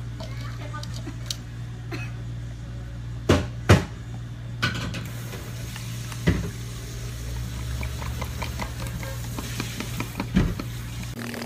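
A plastic cup and other items set down on a counter with a few sharp knocks, then milk poured into an iced chocolate drink and stirred with a straw, over a steady low hum.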